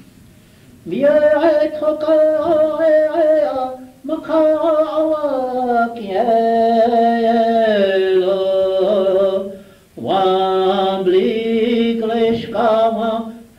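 A voice sings an unaccompanied chant, probably a Lakota song, in long held phrases of a few seconds with short breaks between them. It is heard on an old cassette recording.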